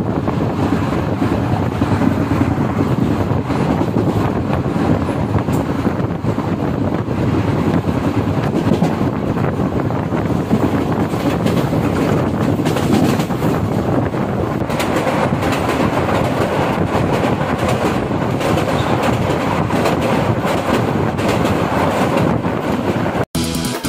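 Falaknuma Express passenger train running along the line, heard on board: a steady rumble and rattle of the coach on the rails. It cuts off suddenly just before the end.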